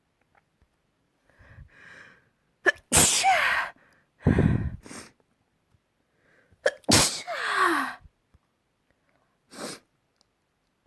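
A person sneezing hard, two big sneezes about three and seven seconds in, each with a voiced cry that falls in pitch. A shorter burst of breath follows the first, and there are quiet breaths between.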